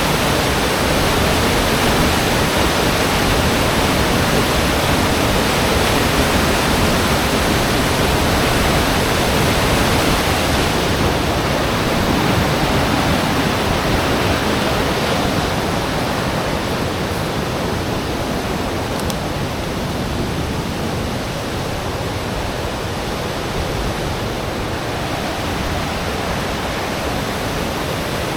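Rushing water, a loud steady wash of noise that softens slightly about halfway through.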